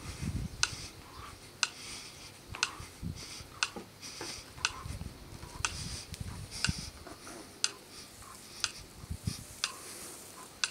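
A timer ticking once a second, sharp and very regular, with faint low rustling underneath.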